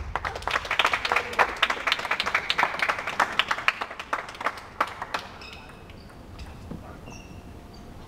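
Spectators clapping after a table tennis rally, a quick patter of many hands that dies away about five seconds in.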